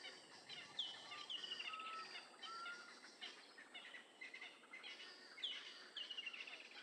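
Faint natural ambience of several birds calling over a soft hiss. A sharp call that drops in pitch and runs into a quick series of notes comes twice, about a second in and again past the middle, with short steady whistles between.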